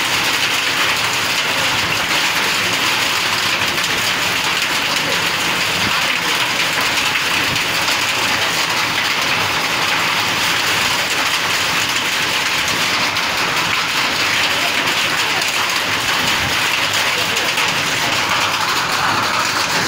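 Hailstorm with rain: hailstones and rain pelting down on bare earth and grass in a dense, steady patter.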